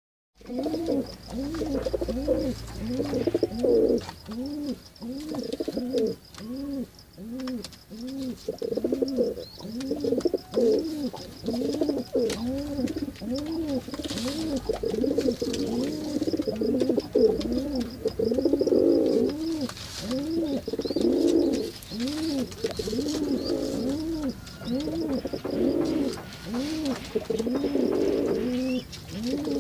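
Domestic pigeon cooing: a continuous run of short, low coos, each rising and falling in pitch, repeating under a second apart.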